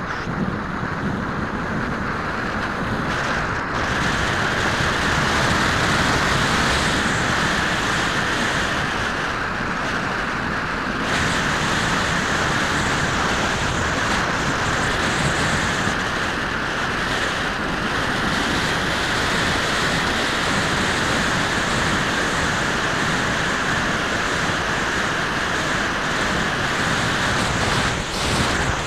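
Steady wind rushing over the microphone of a camera on a moving road bike, a dense noise that thickens a few seconds in.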